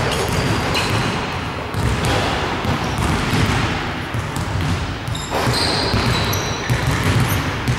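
Basketball being bounced on a hardwood gym floor, with a few short high squeaks in the second half.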